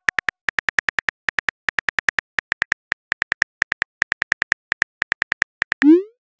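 Phone on-screen keyboard clicks as a text message is typed: quick taps in short runs with small pauses. Near the end comes a short swoosh as the message is sent.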